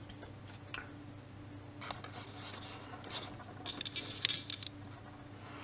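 Faint clicks and scrapes of multimeter test-lead clips being handled and hooked onto a small relay contact, over a steady low hum. A short scratchy cluster of clicks about four seconds in is the loudest part.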